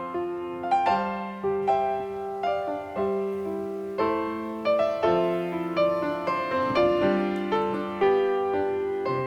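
Background music: a gentle piano melody, notes struck about once or twice a second and left to ring.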